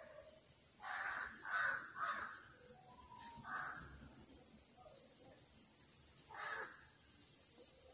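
Crows cawing: a run of harsh caws in the first couple of seconds, then single caws about halfway and near the end.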